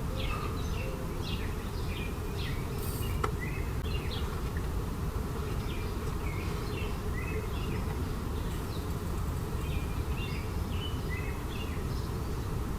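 Birds chirping in many short, repeated calls over a steady low rumble.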